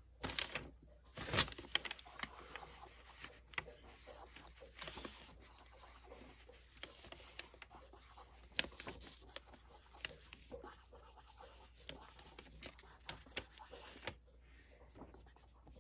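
Felt-tip marker scratching and tapping on paper as small flames are coloured in: faint, irregular strokes with occasional sharper clicks.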